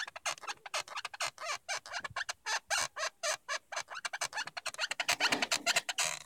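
Car body squeaking from around the windshield: a rapid, irregular train of short high squeaks, several a second.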